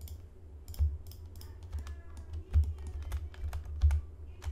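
Computer keyboard keys being pressed for editing shortcuts: irregular clicking, with a few louder taps.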